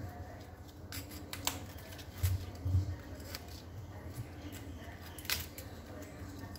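Kitchen knife cutting florets off a raw cauliflower head, with irregular crisp snaps as the blade goes through the stems. A couple of dull knocks come a little over two seconds in.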